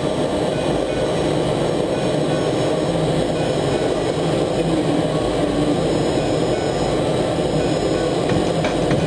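Steady jet noise from an Aero L-29 Delphin's single turbojet engine as the aircraft flies its display, a continuous rushing rumble with no clear rise or fall.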